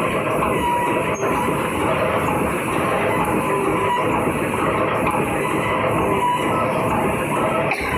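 Automatic welded wire mesh roll machine running steadily: a dense, continuous mechanical noise as it welds and winds the mesh onto a roll.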